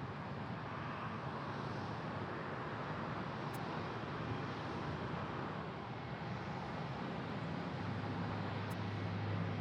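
Distant jet aircraft engine noise: a steady rushing sound, with a low hum growing stronger near the end.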